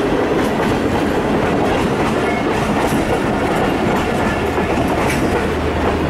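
Passenger train passing at close range: a loud, steady rush of wheel and carriage noise with a few sharp clacks of the wheels over the rail joints.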